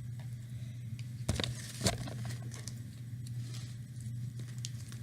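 Light clicks and small tapping sounds of slime ingredients being handled and mixed in a bowl, with two sharper clicks in the first two seconds, over a steady low hum.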